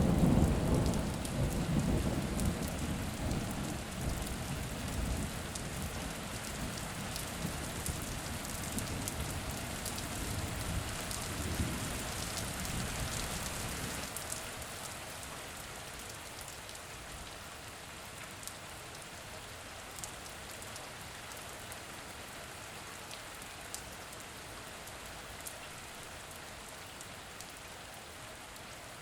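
Steady rain on a surface with scattered drop ticks, under a rolling thunder rumble that is loudest at the start and dies away by about halfway through.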